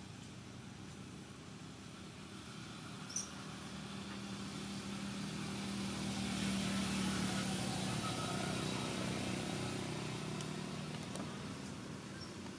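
A motor vehicle's engine drone that grows louder to a peak about halfway through and then fades, as of a vehicle passing by. A short high chirp sounds once about three seconds in.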